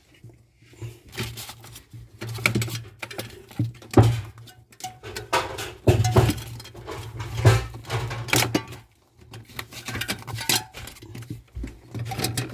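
Irregular clinks, taps and knocks of metal parts and tools being handled during refrigerator repair work, over a steady low hum.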